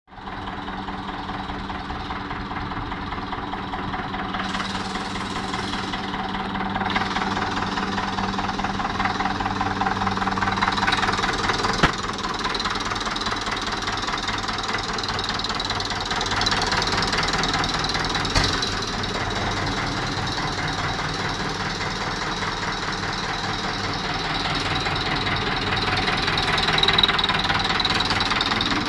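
1963 McCormick International Farmall B-450 tractor's four-cylinder diesel engine idling steadily, with two brief clicks partway through.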